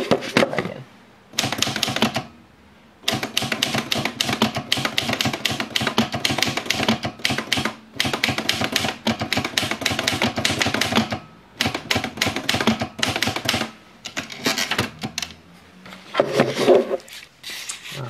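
Freshly serviced Olivetti Lettera 32 manual portable typewriter being typed on: quick runs of key strikes in several bursts, with short pauses between them, as a line of text is typed out.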